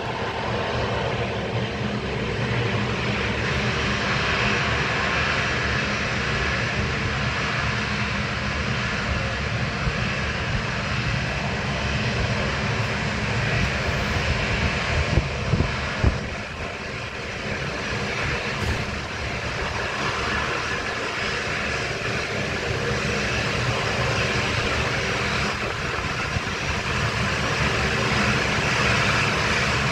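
Jet engines of a Boeing 737 taxiing in at low power: a steady whine and rush with a low rumble underneath.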